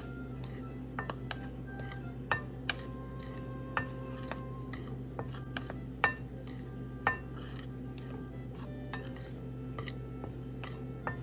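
A metal spoon stirring flour and spices in a glass mixing bowl, clinking against the glass several times, each clink ringing briefly; the loudest strike comes about six seconds in. A steady low hum runs underneath.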